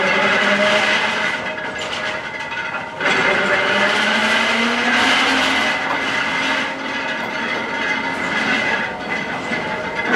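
GE B32-8 diesel locomotive running, its 12-cylinder engine holding a steady note that rises slightly about four seconds in.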